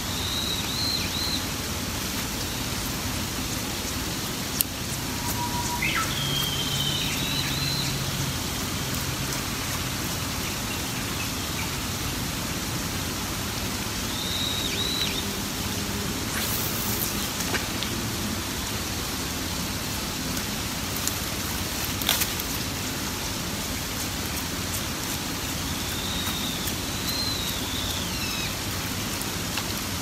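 Steady hiss of light rain in a forest, with a bird giving short, high whistled calls four times, some rising and some falling. A few sharp taps stand out now and then.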